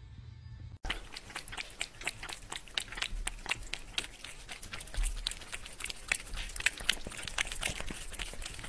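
Cats licking treat paste off a pane of glass: rapid wet licking clicks and smacks, several a second, starting suddenly about a second in.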